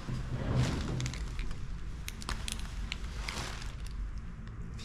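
Handling sounds of a marker being taken up and used on a paper sticker: a run of sharp clicks and taps, then short scratchy strokes of the marker tip across the sticker.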